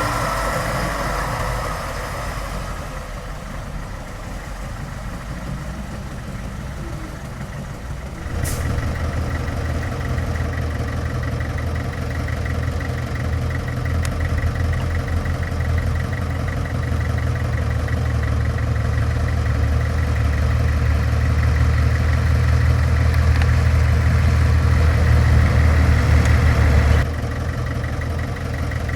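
Heavy diesel engine of earthmoving machinery running. About eight seconds in it grows louder and deeper, with a fast, even ticking over it. Near the end it drops back abruptly.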